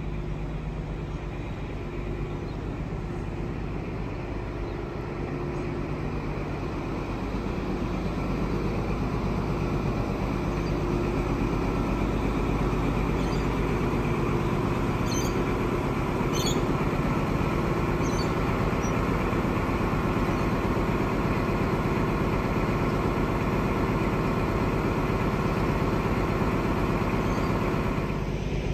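A diesel passenger train's engine running steadily with a low rumble, growing louder about eight seconds in. A few short high chirps come around the middle.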